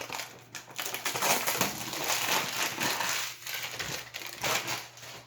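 Cologne packaging being torn open and crumpled by hand, with the crinkle of plastic wrap and cardboard in dense, irregular crackles.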